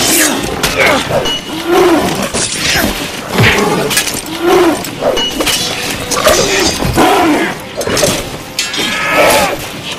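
Battle sound effects: repeated sharp clashes and impacts, like swords striking, mixed with short shouts and grunts from fighters.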